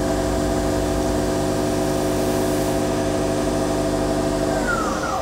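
Sub spindle of a Doosan Lynx 220LMSA CNC turning center running at 3,000 RPM with a steady multi-tone whine. Near the end the tones fall as the spindle spins down to a stop, leaving one steady hum.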